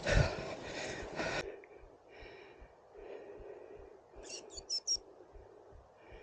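Loud rustling noise with low thumps for about the first second and a half, cutting off sharply. Then quiet bush where small birds call faintly, with a run of four quick high chirps a little past the middle.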